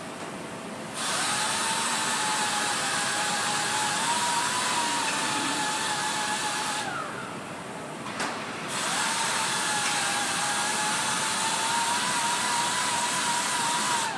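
2001 Amada Gemini FO-3015 CNC laser cutter running in two cycles, each a steady hiss with a wavering whine. The first lasts about six seconds and the second about five. Each starts abruptly and stops with a short falling pitch, and a click comes between them.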